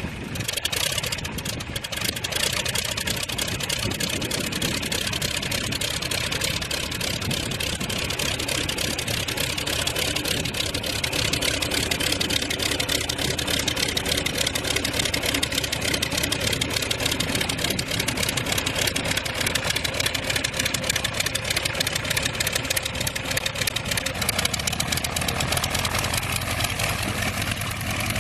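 Verner Scarlett 5Si five-cylinder radial engine on an ultralight biplane running steadily on the ground, propeller turning.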